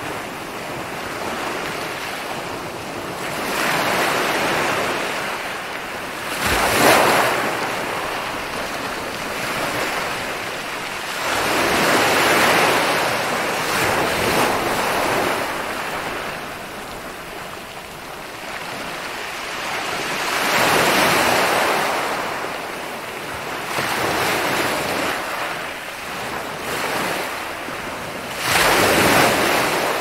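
Ocean waves breaking on a beach, the surf swelling and fading every few seconds, with the loudest break about seven seconds in and another near the end.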